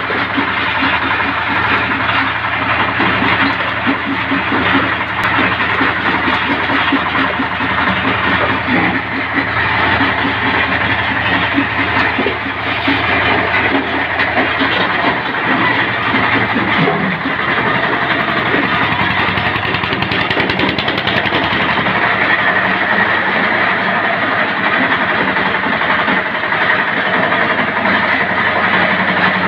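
Belt-driven brick crusher running under load, crushing pieces of brick with a continuous rattling grind over the steady drone of its drive.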